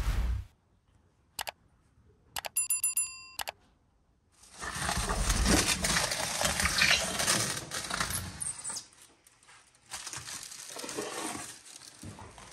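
Scraping and crinkling as a foil-lined baking tray is dragged out across the ash-covered floor of a brick wood-fired oven, loudest for about four seconds and then again more quietly near the end. Before it come a thump and a brief metallic ringing.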